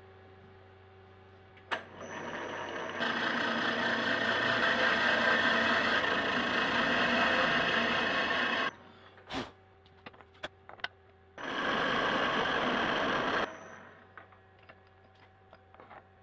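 A power tool working on steel in two runs: a long one of about seven seconds that builds up and then cuts off abruptly, and a shorter one of about two seconds, with a few sharp clicks and knocks from handling the part in between.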